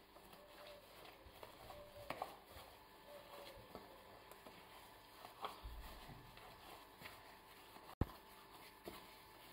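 Faint squishing and patting of bread dough being kneaded by a plastic-gloved hand in a stainless steel bowl, with a couple of soft knocks.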